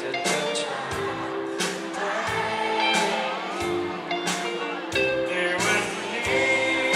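A live band performing a song through a PA: a male vocalist singing over bass guitar, electric guitar and drums, with regular drum hits.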